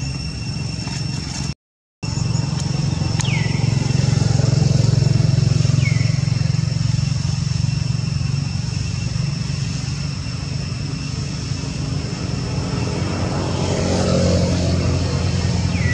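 A motor vehicle engine running steadily, a low drone that swells about fourteen seconds in, over a steady high insect drone. A few short falling chirps come through.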